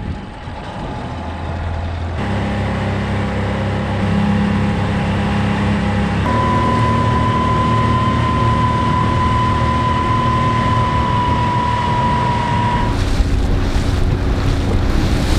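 Small rigid inflatable speedboat's engine running under way, getting louder over the first few seconds as the boat picks up speed, with a steady whine through the middle. Wind buffets the microphone near the end.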